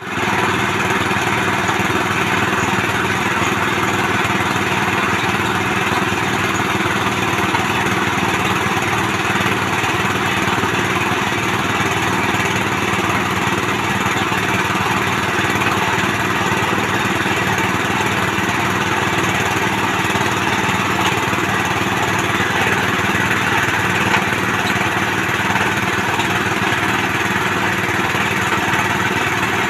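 Small petrol engine of a well-drilling machine running steadily at a constant speed.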